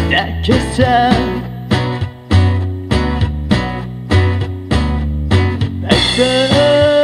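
Japanese pop song: a woman singing over guitar, bass and a steady beat, holding one long note about six seconds in that falls away at the end.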